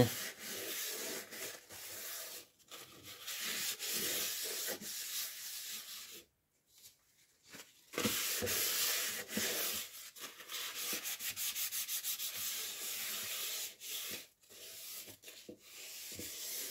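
Paper napkins rubbing over the non-stick coating of a frying pan, wiping off grease loosened by detergent, in repeated strokes with short breaks and one longer pause about six seconds in.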